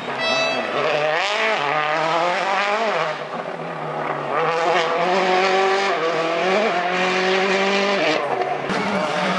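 World Rally Car's turbocharged four-cylinder engine revving hard on a tarmac stage. Its pitch climbs and then drops at each gear change, several times over.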